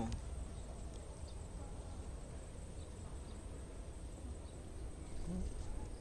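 Quiet rural outdoor ambience: a low steady rumble and faint background hiss, with no distinct events.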